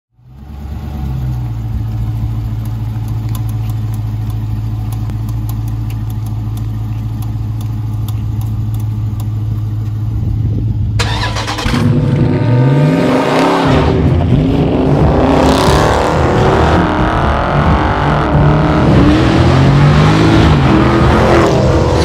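A car engine idling steadily, then about eleven seconds in it revs up and the car pulls away hard, the engine note climbing again and again as it accelerates.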